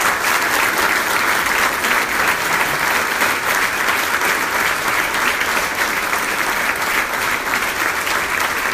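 A roomful of seated banquet guests applauding, steady and loud, at the end of a speech.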